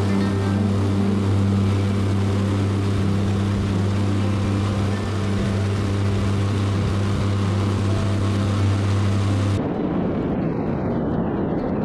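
Pilatus Porter turboprop engine and propeller at climb power just after lifting off, a steady drone with a low hum, with air rushing over the outside-mounted microphone. It cuts off abruptly about ten seconds in, giving way to a duller, different sound.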